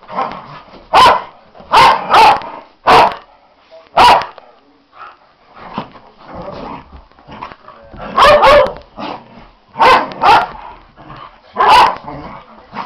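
Two Norwegian Elkhounds play-fighting: sharp barks in quick clusters, about ten in all with a lull of a few seconds in the middle, and quieter growling between them.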